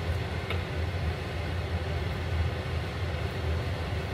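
Steady low mechanical hum, with a faint tap about half a second in.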